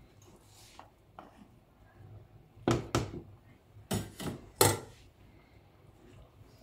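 Wooden spoon and metal mesh strainer knocking against a stainless steel pot while chickpeas are spooned in: a couple of light clicks, then two groups of sharp knocks about a second apart.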